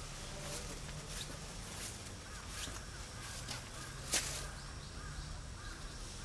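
Footsteps of a person walking on pavement, short sharp steps about every three-quarters of a second, the firmest about four seconds in. Crows caw faintly at times in the background.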